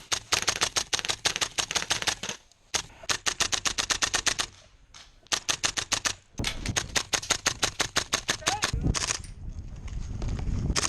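Airsoft rifle firing on full auto: several long bursts of rapid sharp shots, about ten a second, with short pauses between bursts.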